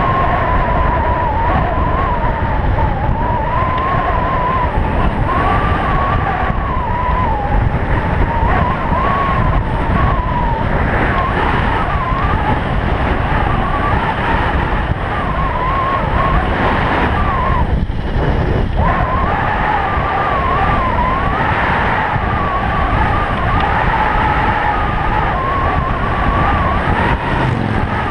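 Wind buffeting a helmet-mounted camera's microphone as a Stealth Bomber electric bike is ridden fast downhill on pavement, with a high whine that wavers up and down and briefly breaks off about two-thirds of the way through.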